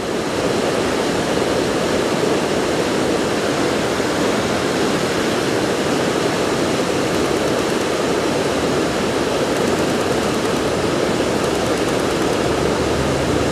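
Mountain-river whitewater rapid rushing over boulders: a steady, unbroken rush of water.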